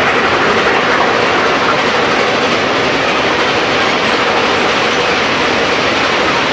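Excursion passenger train running at speed, heard from inside a coach vestibule: a steady, even rush and rumble of the train in motion.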